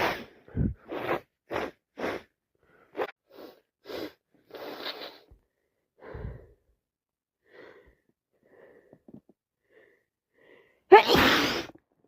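A sick person sneezing: a rapid run of about ten short, sharp sneezes in the first half, a few faint sniffs and breaths, then one loud, longer sneeze about eleven seconds in.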